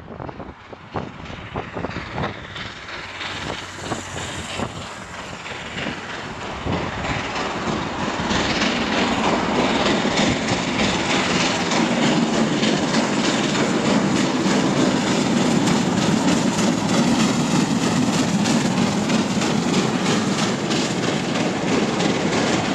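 LNER Class K4 2-6-0 three-cylinder steam locomotive pulling away with a train, its exhaust beats growing louder and coming faster as it approaches and passes close by.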